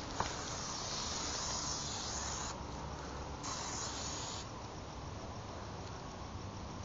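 Aerosol spray-paint can hissing in two bursts: a long one of about two and a half seconds, then a shorter one of about a second after a brief pause.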